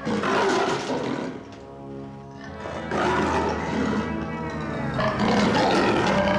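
Black leopard snarling and roaring in two long bursts, the first in the opening second and a half and the second from about three seconds in, over film score music.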